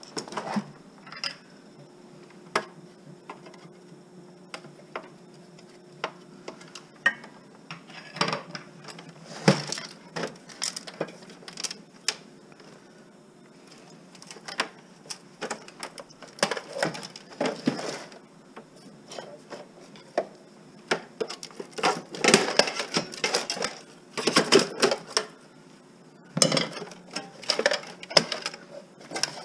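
Clinking and clattering of metal and plastic parts being handled as a television is dismantled for scrap: scattered sharp clicks and knocks, with several busy stretches of rattling toward the middle and end.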